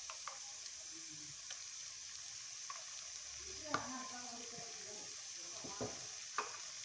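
Onions and ginger-garlic paste sizzling in hot oil in a clay cooking pot, with a steady hiss. A wooden spatula knocks and scrapes against the pot a few times, around the middle and near the end.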